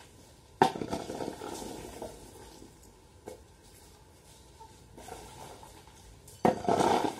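Long-handled metal hoe raking drying areca nuts across concrete: the nuts rattle and the blade scrapes the ground in separate strokes, with the loudest stroke near the end.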